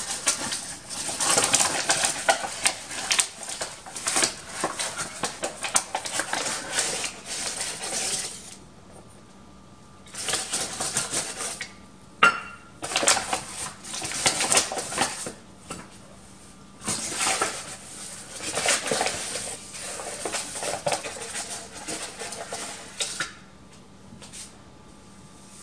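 A paper bag of self-rising flour rustling and crinkling while a metal measuring cup scoops flour and knocks against a glass mixing bowl. It comes in four stretches with short pauses between them, and there is one sharp clink about twelve seconds in.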